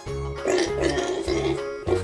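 Children's background music, with a wavering, warbling sound effect over it from about half a second in until near the end.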